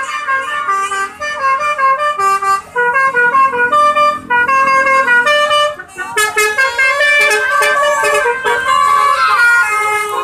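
Telolet bus horns, multi-tone musical air horns, playing a fast tune of short stepped notes. About six seconds in a fuller, louder set of horn notes takes over, with gliding, siren-like tones toward the end.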